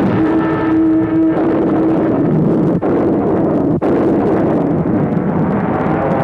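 Rocket-propelled bullet car in flight, a loud, steady rushing roar of its rocket exhaust; for about the first second an orchestral chord is held over it.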